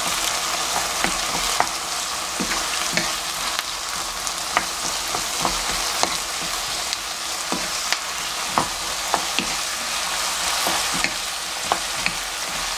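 Garlic scapes sizzling in oil and seasoning in a frying pan while being stirred with a wooden spoon, with a steady hiss and frequent light clicks and scrapes of the spoon against the pan.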